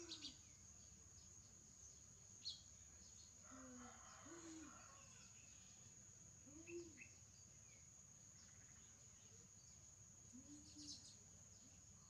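Faint garden ambience: a steady high-pitched insect drone with scattered bird chirps. A few short, low calls come every two to three seconds.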